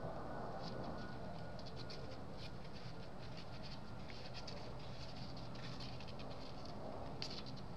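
Faint, irregular small clicks and scratchy rustles from 12-day-old kittens nursing and crawling over their mother on newspaper, with a slightly louder cluster near the end, over a steady low room hiss.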